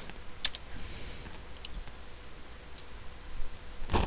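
A few isolated computer keyboard keystrokes clicking, spaced out rather than continuous typing, with one much louder key knock near the end, typical of the Enter key being struck.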